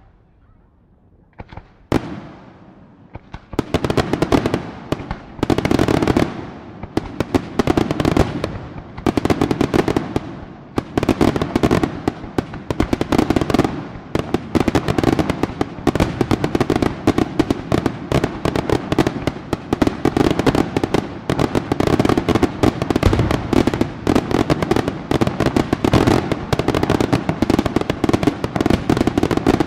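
Aerial fireworks display: after a quiet start, a single sharp report about two seconds in. From about four seconds a dense, unbroken barrage of shell bursts and crackling reports follows, one on top of another.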